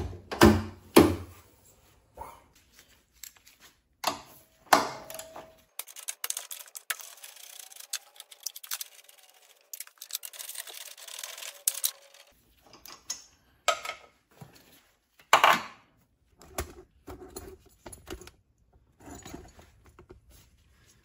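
Metal clinks and knocks of hand tools and suspension parts being handled during a coilover removal, irregular throughout, with a few louder knocks near the start, about five seconds in and about fifteen seconds in.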